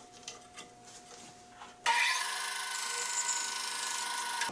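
A few light clicks of hands on the sled and its clamps, then about two seconds in a band saw suddenly starts running with a loud, steady whine.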